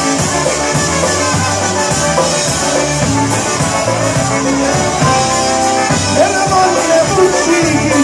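A live band plays an upbeat dance tune through PA speakers, with trumpets, accordion and electric guitar over a steady beat.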